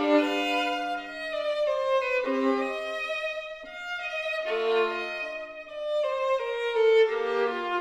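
Slow instrumental music led by a violin, with several held notes sounding together and shifting every second or so.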